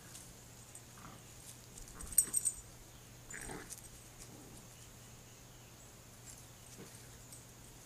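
Two puppies tussling over a fish toy, making short scattered dog noises, with a quick cluster of sharp, loud sounds about two seconds in.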